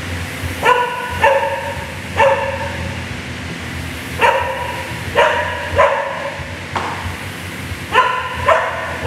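A dog barking, about eight short barks in groups of two or three, over a steady fan-like whir.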